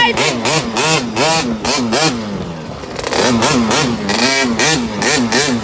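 KTM 50 mini dirt bike's small two-stroke engine being ridden, its pitch surging up and down about three times a second as the throttle works. About two seconds in it drops lower and quieter for a moment, then picks back up.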